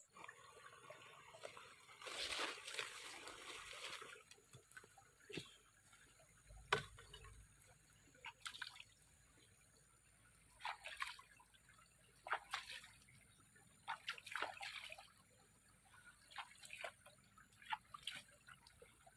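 Faint water sounds: a couple of seconds of sloshing and trickling, followed by a scattering of short, separate splashes and drips.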